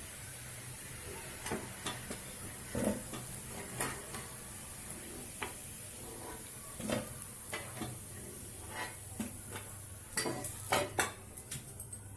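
A metal spoon clinking and scraping against a pan as fried lentil vadas are lifted out of hot oil, with a faint sizzle of the oil under the scattered knocks.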